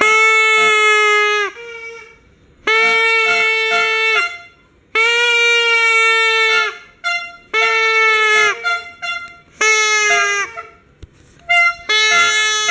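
New Year noisemaker horns, a handheld air horn and torotot party horns, blowing about six loud blasts of one to two seconds each, with shorter, higher toots in between.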